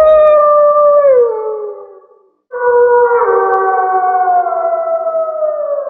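Werewolf howl sound effect: a wolf-like howl held on one pitch drops and fades out about two seconds in, then a second long howl slowly falls in pitch and fades near the end.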